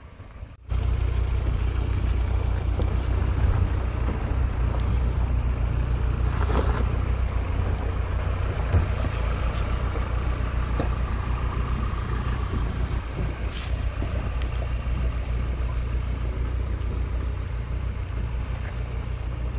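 Ford Endeavour's diesel engine idling, a steady low rumble that cuts in abruptly just under a second in.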